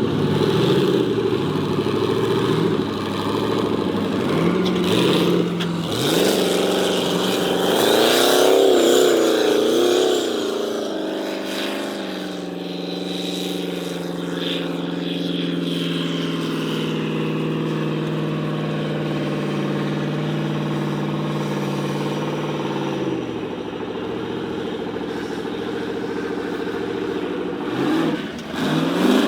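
Formula off-road race car's engine revving hard, its pitch rising and falling repeatedly, then holding fairly steady for about ten seconds before dropping and revving up again near the end.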